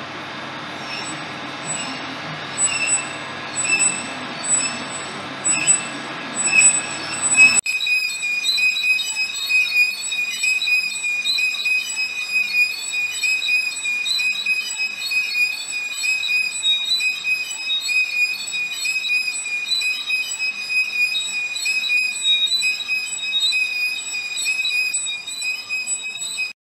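Metal lathe cutting a thin metal ring held in soft chuck jaws. Under steady machine noise the tool gives short high squeals about once a second; after an abrupt change about eight seconds in, it settles into a steady, wavering high-pitched squeal.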